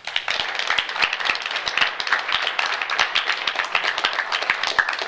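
Audience applauding: many hands clapping in a dense, steady patter that breaks out suddenly.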